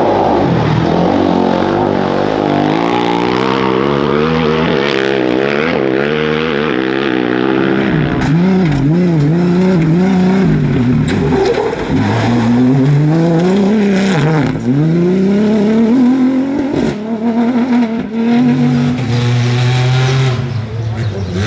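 Off-road rally vehicles passing one after another on dirt tracks: a rally-raid motorcycle, then a Toyota rally pickup and a side-by-side buggy. Their engines rev up and down again and again as they accelerate and change gear.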